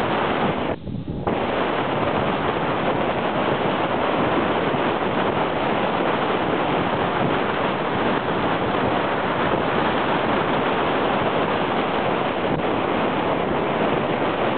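Wind buffeting the camera's microphone at cycling speed: a loud, steady rush of noise that dips briefly about a second in.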